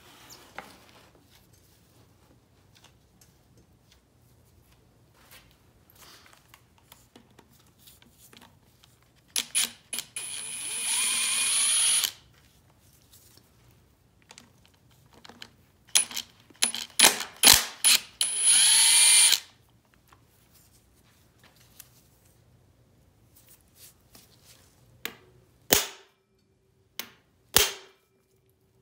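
Handheld electric power tool whirring in two spells, each a few short trigger pulses followed by a steady run of two to three seconds, its pitch sliding as the motor spins up and down. Two sharp clicks come near the end.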